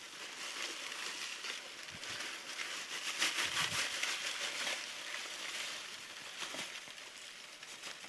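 Dry, crackly rustling and scratching from an opened box of live dubia roaches and their packing material, loudest about three to four seconds in.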